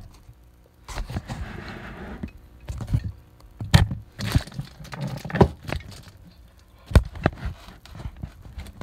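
Handling noise of a phone being fitted onto a camera stand and a cardboard box moved about on a plywood workbench: scattered knocks and thumps, the sharpest about seven seconds in, with stretches of rustling.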